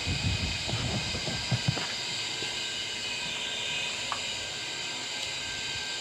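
Delta Gold 50 cm wall-mounted fan running: a steady rush of air with a constant motor hum and whine. Uneven low rumbles come through in the first two seconds.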